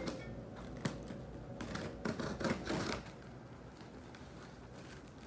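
A cardboard shipping box and its packing being handled and opened: a few sharp clicks in the first second, then a stretch of rustling and crackling about two seconds in, quieter handling noise after about three seconds.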